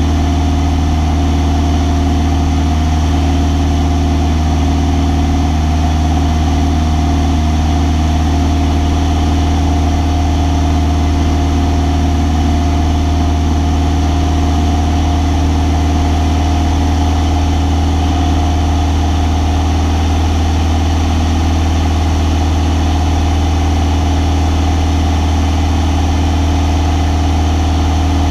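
Single-engine light aircraft's piston engine and propeller running steadily in level flight, heard from inside the cabin as a constant low hum with steady tones.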